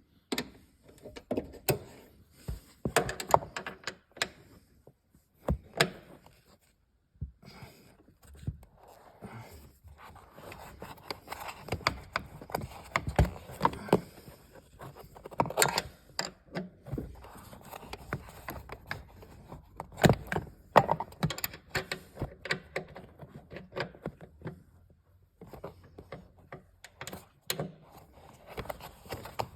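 Irregular clicks, knocks and short scrapes of hand tools and car interior parts being handled while the seatbelt pretensioner's mounting screws are worked loose, with brief quiet gaps between bursts.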